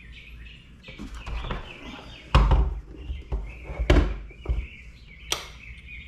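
A few sudden knocks and thumps of things being handled, the loudest three about a second and a half apart, over birds chirping steadily in the background.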